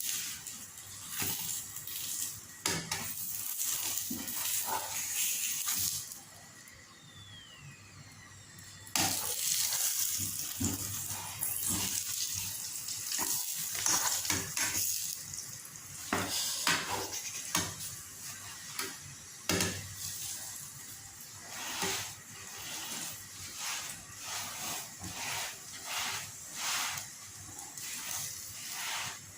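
Chapatis frying in oil on a hot pan, with a steady sizzle and repeated clinks and scrapes of a spatula against the pan as they are pressed and turned; the sizzle drops quieter for a few seconds about six seconds in.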